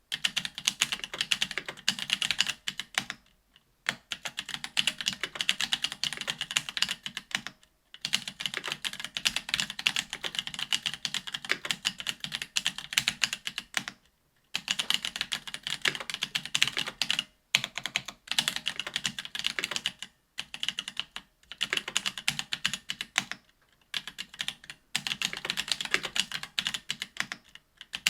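Continuous typing on a BOK AL.BOK custom mechanical keyboard with Ethereal Panda tactile 68g switches: rapid keystrokes in long runs, broken by several brief pauses.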